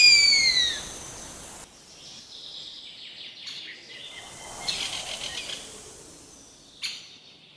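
A bird gives one loud, whistled cry that falls in pitch, then faint tropical forest ambience with distant bird chirps.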